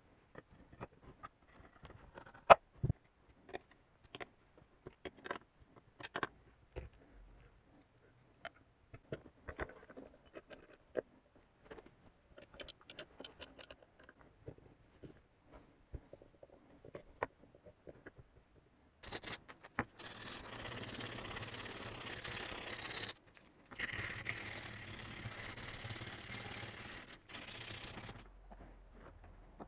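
Metal parts of a Tomos moped engine crankcase clinking and knocking as they are handled and worked on a bench, in many separate sharp clicks. About twenty seconds in, a steady rushing hiss takes over for about ten seconds, broken twice.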